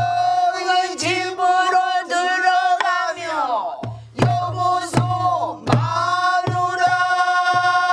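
Pansori singing by a woman, sliding between notes and then holding a long steady note, with other voices joining in. Low strokes on a buk barrel drum mark the rhythm underneath.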